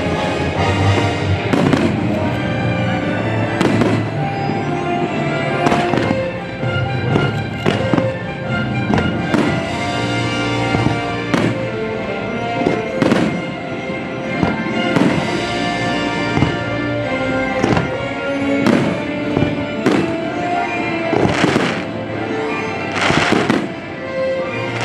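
Fireworks display: aerial shells bursting every second or two over the show's musical soundtrack, with two of the loudest bursts near the end.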